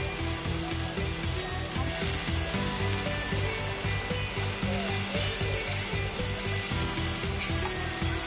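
Meat sizzling as it cooks, a steady hiss, over background music with a steady beat.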